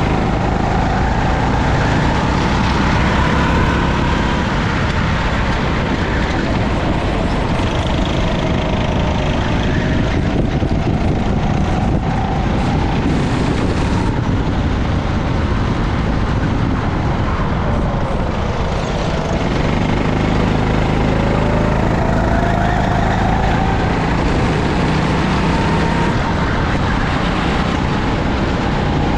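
Go-kart engine running hard, its pitch climbing in long rises as it accelerates down the straights and falling back into the corners, several times, over a steady rush of wind noise.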